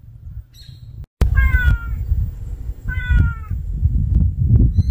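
A white kitten meowing twice, two short calls that dip slightly in pitch, about a second and a half apart, over a low rumble.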